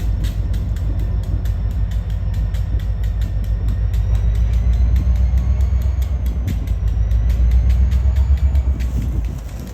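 Diesel freight train rolling past: a low locomotive engine rumble with rapid, regular clicking of wheels over the rails and a faint wavering high squeal. It grows louder past the middle and drops off just before the end.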